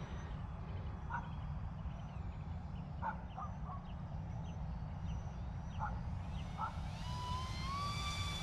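Electric motor and propeller of a small radio-controlled flying wing whining louder and rising in pitch from about six and a half seconds in as the plane comes by close. Before that there are a few short bird calls over a steady low rumble.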